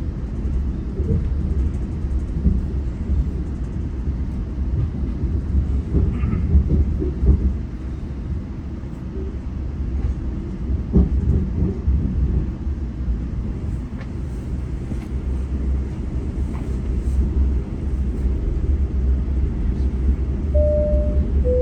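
GO Transit commuter train running along the line, a steady low rumble of wheels on rails with occasional knocks and clicks. Near the end a two-note falling chime sounds, the onboard signal that a station announcement follows.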